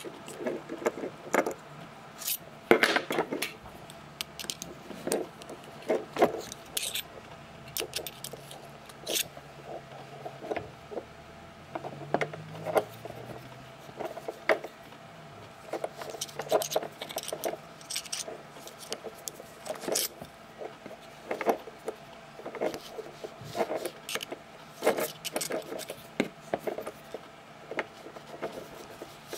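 Brass gasoline lighter being handled and worked on by hand: irregular light metal clicks and taps, with some scraping and rubbing.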